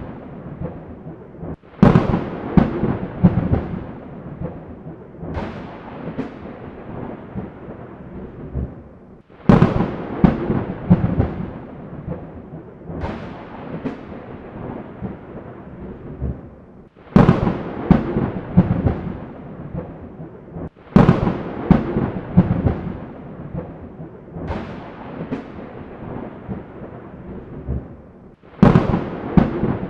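Thunder: a run of about eight claps, one every three to four seconds, each a sudden crackling crack that dies away into a low rolling rumble. Each rumble cuts off abruptly just before the next crack.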